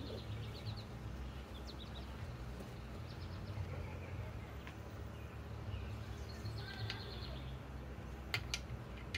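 Birds chirping faintly in short trills over a low steady background rumble, with a couple of sharp clicks near the end.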